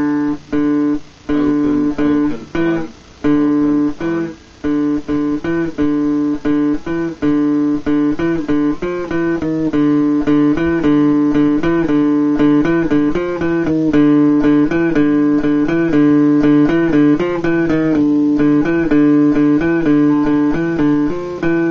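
Yamaha electric guitar in drop D tuning playing a picked single-note riff that walks down the D string (third fret, second, first, open) against the low strings. It starts as short phrases with brief gaps, then runs on continuously from about a third of the way in.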